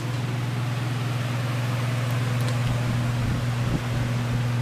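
Steady low mechanical hum with an even hiss of moving air, like a ventilation fan running, and a brief low thump about three and a half seconds in.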